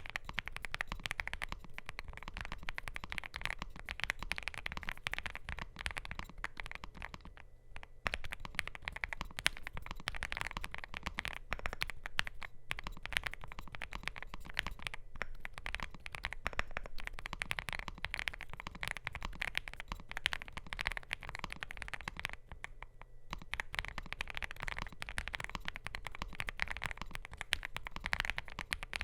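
Steady, fast typing on a NuPhy GEM80 mechanical keyboard with lubed and filmed NuPhy Raspberry linear switches, a POM plate and PBT doubleshot keycaps. The keystrokes pause briefly twice, about a third of the way in and again about three quarters of the way in.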